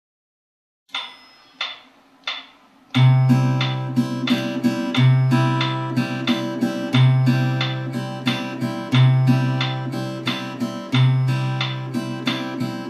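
Acoustic guitar fingerpicked in a 3/4–6/8 broken-chord pattern: three soft taps about two-thirds of a second apart, then a bass note at the start of each bar, about every two seconds, followed by plucked higher notes, about six to a bar. It stops abruptly at the end.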